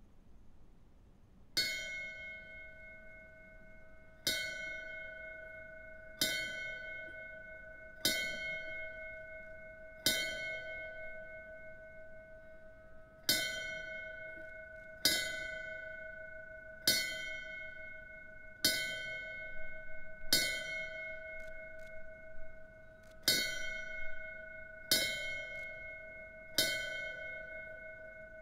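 Ornate silver fire-service memorial bell struck by hand about every two seconds, each stroke ringing on into the next: two sets of five strikes divided by longer pauses, then the start of a third set. This is the fire service's 5-5-5 bell signal, rung in honour of firefighters who died in the line of duty.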